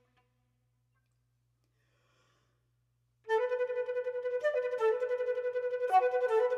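Near silence for about three seconds, then a solo concert flute comes in loudly on a held note, rapidly pulsed in a fast train-like rhythm, with a second line of notes moving above it near the end. The pulsing and layered notes come from extended techniques such as double tonguing and singing while playing.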